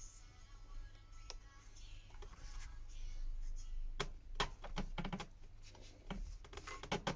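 Small sharp clicks and taps of tools and phone parts being handled during a smartphone teardown, with a quick run of clicks around the middle and a few more near the end, over a low steady hum.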